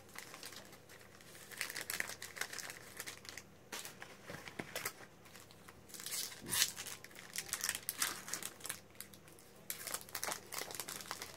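Foil Magic: The Gathering booster pack wrapper crinkling in the hands and being torn open, a dense run of irregular crackles.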